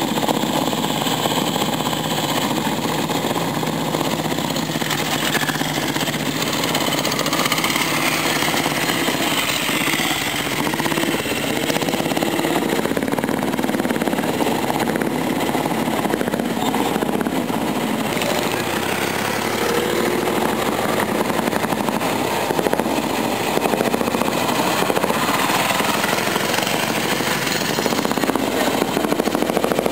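Several motorcycle engines running and idling together, as a group of riders moves off at low speed.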